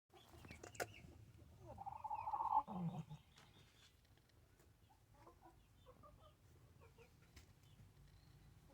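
An animal wheezing: one loud, rasping wheeze about two seconds in, dropping to a lower falling sound at its end, followed by faint short chirp-like sounds.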